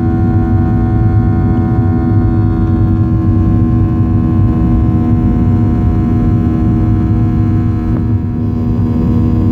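Steady jet-engine drone heard inside the cabin of a Boeing 737 airliner climbing after takeoff: a low rumble with several steady hum tones over it.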